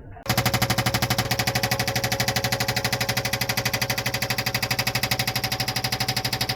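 Excavator-mounted hydraulic breaker hammering rock, a rapid, even train of blows that starts abruptly just after the beginning and keeps up steadily.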